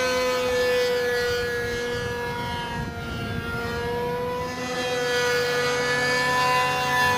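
Single-cylinder engine of a radio-controlled model airplane flying overhead: a steady, high-pitched buzzing whine. Its pitch sags slightly and fades a little around the middle, then comes back up.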